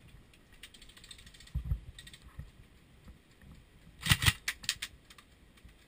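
A dull thump, then a quick irregular run of sharp clicks and knocks about four seconds in.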